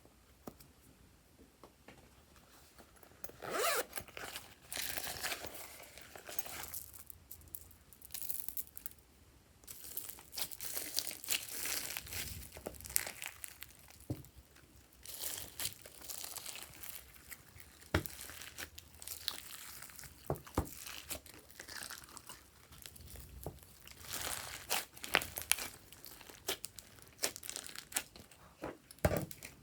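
Hands stretching, squeezing and pulling apart slime: dense crackling and tearing sounds with sharp pops, starting a few seconds in.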